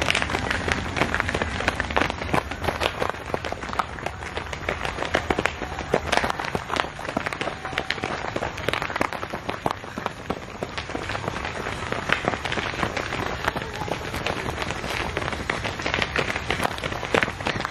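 Footfalls of many runners on a dirt trail, a dense, irregular patter of quick steps.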